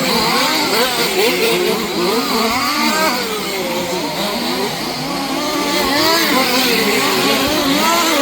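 Several 1/5-scale 4WD off-road RC cars' small two-stroke petrol engines revving over one another, their pitches rising and falling as they race.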